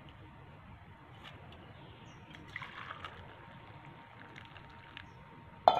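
Hot milky tea poured from a steel lota into a steel bowl and a steel mug: a faint trickle and splash of liquid. A single sharp clink of steel vessels near the end is the loudest sound.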